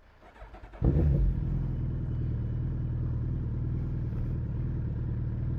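Suzuki Hayabusa's inline-four engine starting up about a second in, catching with a brief flare and then settling into a steady idle.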